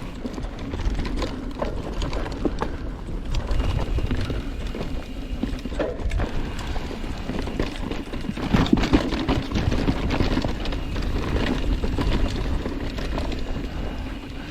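Mountain bike rolling fast over a rough, rocky dirt trail: tyres crunching on loose dirt and rock, with the frame, chain and suspension rattling and knocking, and wind on the microphone. It gets rougher and louder about two thirds of the way through.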